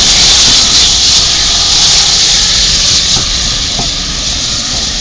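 Steam locomotive hissing steam loudly as it moves past, the hiss fading over the last couple of seconds as it draws away, with a few faint clicks.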